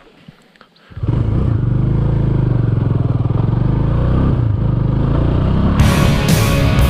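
A motorcycle engine comes in suddenly about a second in and runs steadily. Near the end, rock music with drum beats starts over it.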